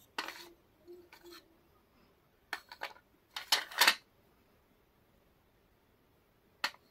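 Brittle flaky chips being bitten and snapped between the teeth: a string of crisp, sharp crunches in short clusters. The loudest come a little before four seconds in, and one more comes near the end.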